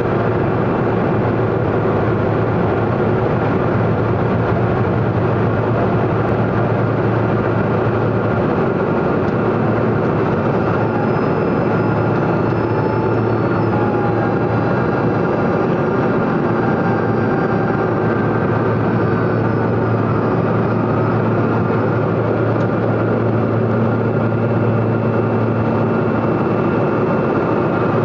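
Pilatus PC-12's single Pratt & Whitney PT6A turboprop engine and propeller running at high power for takeoff, heard inside the cockpit as a loud steady drone with a constant low hum and a higher whine, without any change in pitch.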